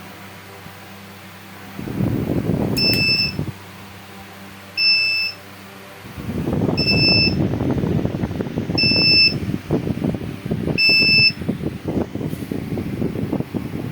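Luminous Eco Watt Neo inverter's buzzer beeping five times: short, high, even beeps about two seconds apart, over low rustling and handling noise.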